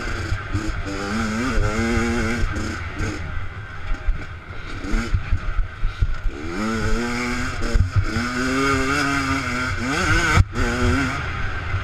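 Minibike engine revving up and down hard as it is ridden on a rough dirt trail, its pitch climbing several times with the throttle. It is heard close from the rider's helmet, with knocks from the bumps, the sharpest a little after ten seconds.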